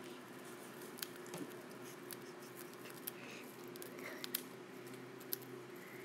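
Cockatiel cracking and husking spray-millet seeds with its beak: faint, irregular little clicks and crackles.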